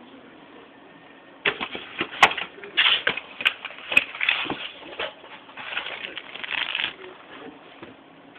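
Crinkling and clicking of the tablet's box packaging being handled: irregular sharp clicks and rustles that begin about a second and a half in and die away shortly before the end.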